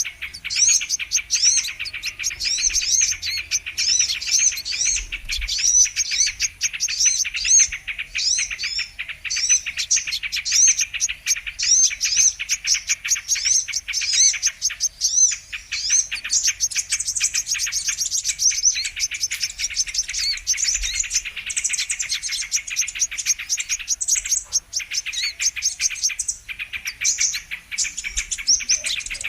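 Brown-throated sunbirds (kolibri kelapa) calling: a dense, continuous run of quick, high chirps and twitters with many notes overlapping.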